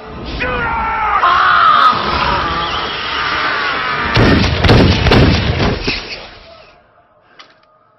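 Film soundtrack: a shrill, wavering scream, then a rapid string of handgun shots that ends about six seconds in.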